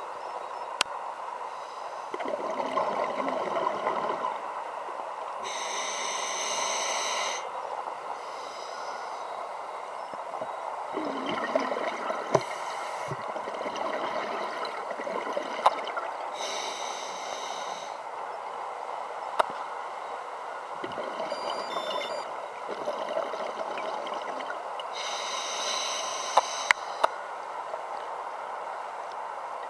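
Scuba regulator breathing underwater: a hissing inhalation four times, several seconds apart, with bubbling exhalations in between, and a few sharp clicks.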